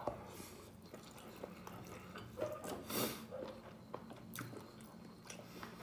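Close-up chewing of a mouthful of rice eaten by hand, with small wet clicks and smacks. Fingers work the rice in the bowl. A faint steady low hum runs underneath.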